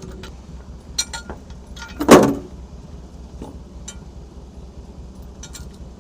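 Steel lifting chain being handled, with light clinks and one loud metallic clank about two seconds in, over a low steady hum.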